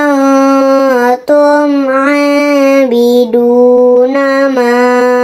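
Melodious Qur'an recitation (murottal), chanted in one voice with long drawn-out held notes broken by brief pauses.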